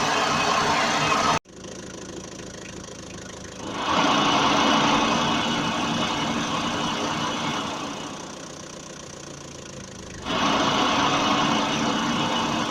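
Worn wheel hub bearing of an Opel Astra G humming with a steady droning tone, cut off abruptly about a second and a half in, then swelling louder again about four seconds in, easing off, and rising once more near the end.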